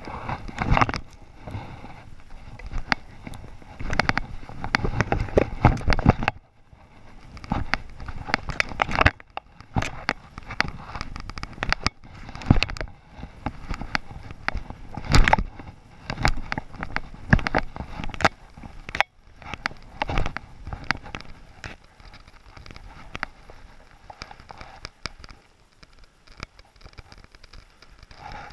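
Skis hissing and swooshing through deep powder snow in repeated turns, with frequent sharp clicks and knocks and two short quiet breaks.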